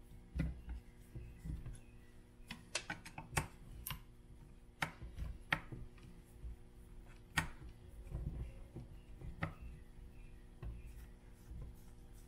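Irregular light clicks and taps of a hex driver and small screws against the plastic bumper of an RC truck as the screws are backed out and handled, a quick cluster of them a few seconds in.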